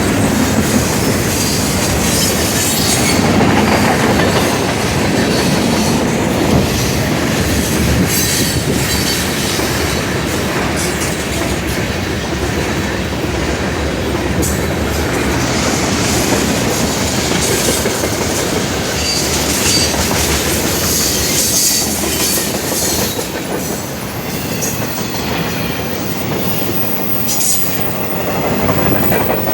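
Norfolk Southern manifest freight train's cars rolling past fast: a loud, steady rumble of steel wheels on rail, with irregular clicks from the rail joints and brief high wheel squeals.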